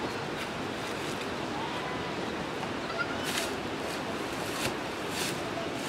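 Three sharp knocks in the second half as the wooden pole frame is worked on by hand, over a steady rushing background noise.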